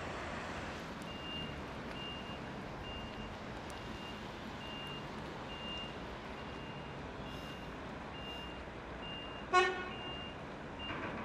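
Volvo L260H wheel loader and dump truck diesels running steadily while a reversing alarm beeps about every two-thirds of a second. Near the end a single short, loud horn toot sounds.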